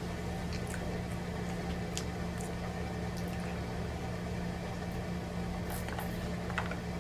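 Steady low hum with a few faint, soft clicks, as a man sips and swallows a drink from a plastic cup.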